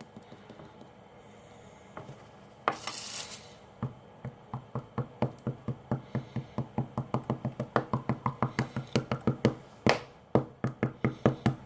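Rapid tapping and jabbing, about four sharp strikes a second, as a fork is stabbed into the cap of a glue bottle to poke holes so the glue will flow. A brief hiss comes about three seconds in, before the strikes begin.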